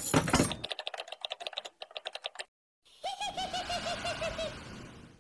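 Hardened shell of a pink foam heart crunching and crackling as hands squeeze it: a loud crunch, then a rapid run of small cracking clicks. Near the end, a short warbling tone pulsing about seven times a second.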